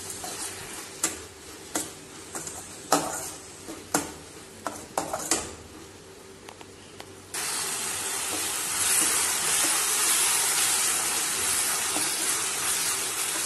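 Spatula knocking and scraping against a stainless steel kadai while stirring tomatoes and onions frying in oil. A steady sizzle runs underneath and gets suddenly louder about seven seconds in.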